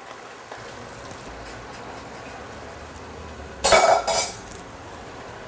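Metal cookware clanking twice in quick succession, short ringing clatters over a low steady background.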